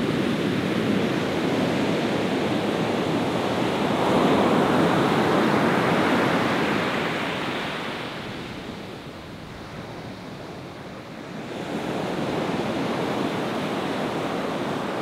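Ocean surf washing onto a beach: a wave swells up about four seconds in, eases off into a quieter lull, then the surf rises again near the end.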